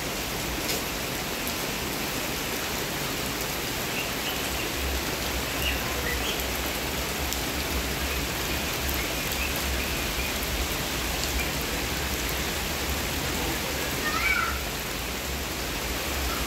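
Steady rain falling, with faint short animal calls now and then and a louder call about fourteen seconds in.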